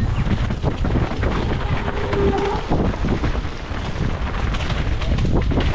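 Wind buffeting an action camera's microphone on a mountain bike riding downhill, with tyres rolling over dirt and the bike rattling and knocking over bumps in the trail.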